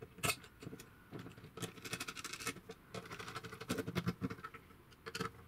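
Hands refitting the wiring and brush parts of a vacuum cleaner motor, with a screwdriver in use: an irregular run of small clicks, taps and rustles.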